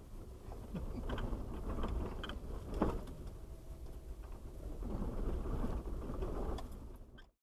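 Cabin noise of a 2001 Jeep Wrangler TJ driving slowly over a rough dirt trail: a steady low rumble with scattered knocks and rattles as it rides over the bumps. The sound cuts off suddenly near the end.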